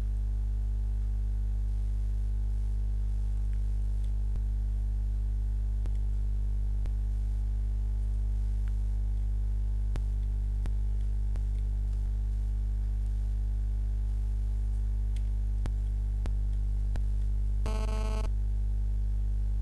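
Steady low electrical hum with several even overtones, unchanging in level, with a few faint clicks. Near the end a brief half-second buzzy blip cuts in.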